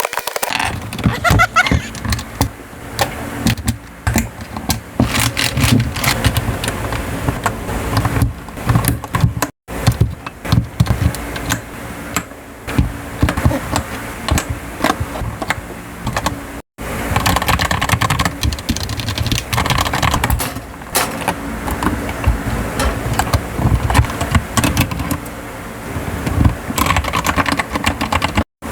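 Typing on a mechanical keyboard fitted with a keycap set: rapid, irregular key clacks, broken off sharply three times for a split second.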